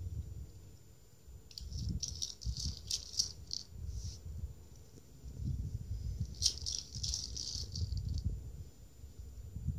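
Dry cat kibble rattling inside a plastic Ca-Tumbler wobbler foraging toy as a cat paws and tips it. There are two spells of rattling, one from about one and a half seconds in and another from about six and a half seconds, with dull knocks in between.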